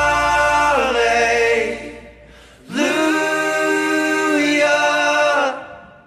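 Background music: sung vocals holding long notes in two phrases. The first glides down and ends about two seconds in, along with a low accompaniment under it; the second fades out near the end.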